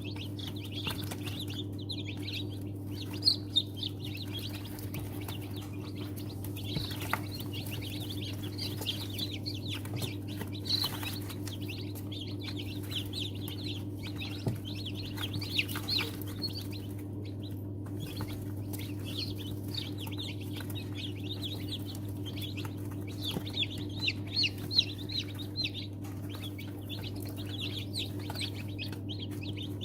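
A group of newly hatched chicken chicks peeping continuously, many short high peeps overlapping, over a steady low hum. A few sharp knocks come through, around 3 s, 10 to 11 s and 14.5 s in.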